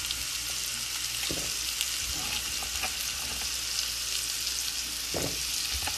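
Chopped sweet potato chunks sizzling in olive oil and butter in a sauté pan: a steady hiss with a few short crackles.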